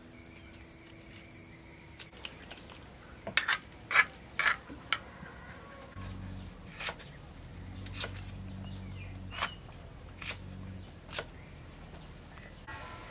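Insects chirping in a high trill that repeats about once a second, with a few sharp knocks between three and five seconds in and a low steady hum coming in about halfway.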